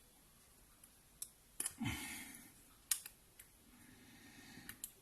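A few sharp, small clicks and taps from handling the parts of an iPad mini 2 during a screen replacement, spaced unevenly, with a short low sound falling in pitch about two seconds in.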